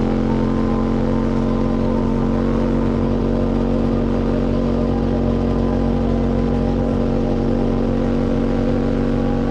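QJ SVT 650X motorcycle engine through an Arrow Racetech slip-on exhaust, running at nearly steady revs as the bike cruises.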